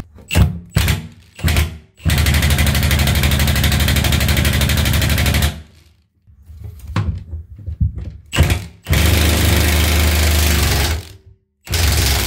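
Power impact tool hammering in rapid-fire bursts on a seized old brass tub drain, trying to unscrew it where a breaker bar failed: two long bursts of several seconds each and a short one near the end, with clicks and knocks of the tool being repositioned between them.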